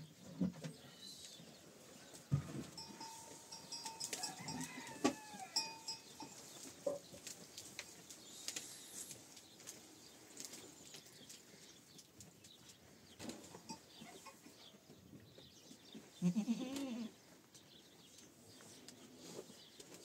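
Goats in a stable: one goat bleats loudly about sixteen seconds in, with a few fainter calls in the first seconds and scattered knocks and rustling throughout.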